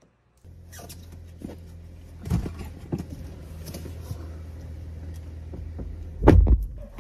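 Steady low hum of a car idling, with knocks and rustling as someone climbs into the driver's seat. A loud thump about six seconds in is the car door shutting.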